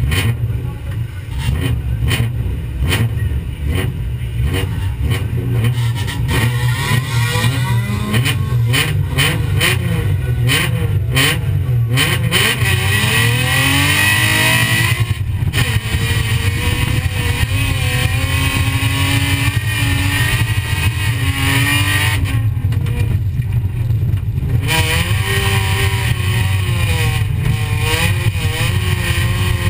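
Folkrace car's engine heard from inside the cabin, running at the start line with a string of short clicks, then revved hard and accelerating partway through, its pitch rising and falling as the car races on a dirt track.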